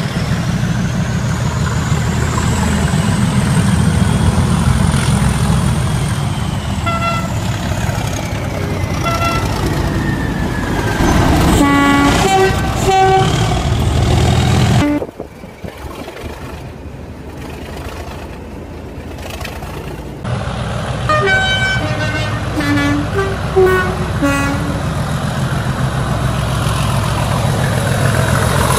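Diesel locomotive engine running with a deep steady drone, a high whine that rises and falls over the first several seconds, and short horn toots in several clusters. The engine sound drops away for about five seconds in the middle.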